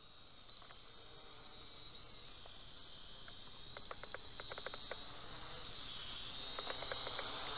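High-pitched whine of a JJRC H5P mini quadcopter's small coreless motors and propellers, wavering in pitch with the throttle and growing louder as it comes close. Two short runs of quick clicks sound in the middle and near the end.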